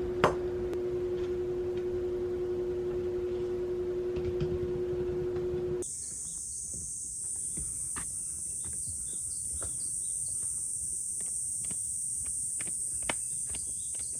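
A steady low hum with two tones, with one click just after the start; about six seconds in it cuts abruptly to a steady high-pitched insect chorus with faint scattered ticks.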